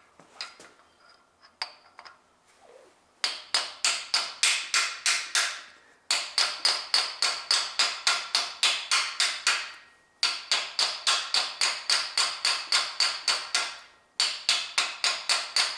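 Small hammer tapping rapidly on a metal socket extension, used as a drift, at about four or five sharp ringing strikes a second. The taps come in four runs of a few seconds each with short pauses between. They are knocking loose the tight-fitting camshaft bearing area of the engine head.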